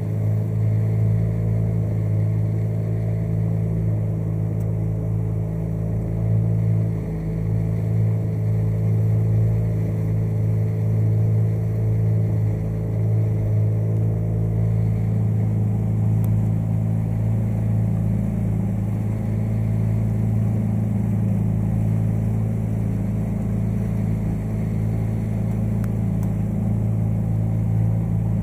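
Small motorboat's engine running steadily, a low even drone while the boat is under way.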